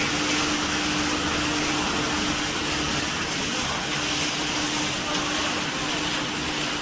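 Popcorn sugar-coating machine running: a steady motor hum under a continuous hissing rustle of coated popcorn being churned in the coating pan.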